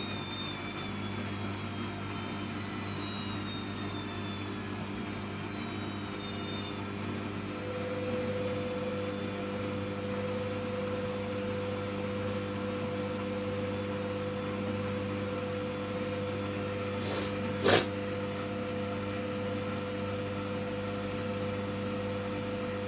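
Hoover washing machine running early in a cotton 90° wash: a steady motor hum, with a high whine falling in pitch over the first few seconds, then a steady whine from about a third of the way in. A single sharp click comes near the end.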